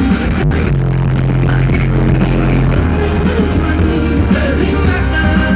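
Live band music played loud, with a deep bass note held for about two seconds starting near the one-second mark.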